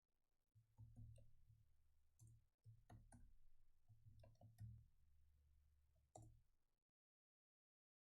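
Faint computer-keyboard typing: irregular key clicks over a low hum, stopping abruptly into silence about seven seconds in.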